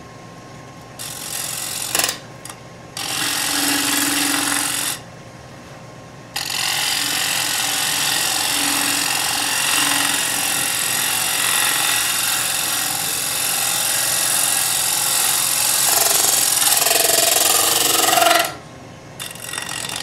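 Turning tool cutting a spinning wooden workpiece on a wood lathe: a loud rush of shavings being cut, in three passes. A short cut comes about a second in, another about three seconds in, then a long steady cut from about six seconds until near the end.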